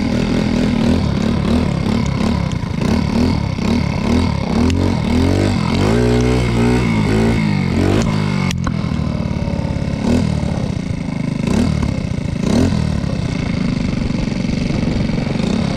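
Small moped engine running under the rider, its pitch rising and falling as the throttle is opened and eased off, with a strong climb in revs about six to eight seconds in. A single sharp click about eight and a half seconds in.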